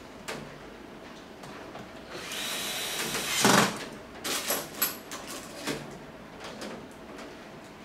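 Handling noise from the reassembly of an electric fan: a hiss of about a second that ends in a loud, short rasp, followed by several sharp clicks and knocks.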